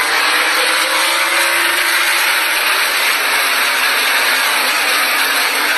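A pack of NASCAR stock cars racing past at speed: a loud, steady wash of V8 engine noise, with the engine pitch sweeping as cars go by in the first couple of seconds.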